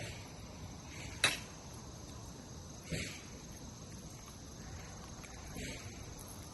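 Steady high-pitched insect chirring, with one sharp crack about a second in and two softer knocks later.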